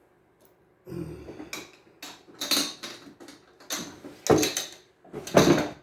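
Handling noises from a cassette-deck transport mechanism being picked up and worked on: a series of separate knocks and rattles of small plastic and metal parts, with the loudest near the end.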